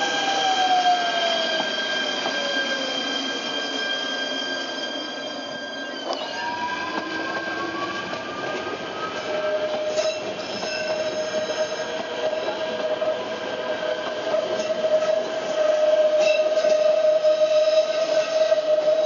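Metre-gauge electric train of the Centovalli Railway moving past, with several steady whining tones, some sliding down in pitch over the first few seconds. From about halfway a single steady high squeal, typical of wheels on a tight curve, sets in and grows louder.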